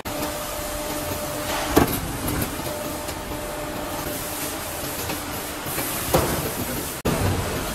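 Pallet-rack upright column roll forming line running: steady machine noise with a faint low tone, broken by two sharp knocks, about two seconds and about six seconds in.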